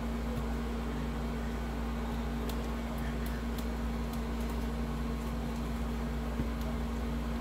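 Steady hum of a running machine with a constant low tone, with a few faint clicks around the middle and a soft knock near the end.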